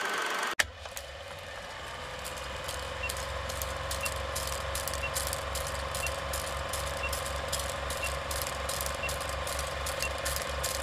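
Film projector sound effect: a steady, rapid mechanical clatter of film running through the projector, starting with a sharp click about half a second in. A short high beep sounds once a second from about three seconds in, marking the countdown.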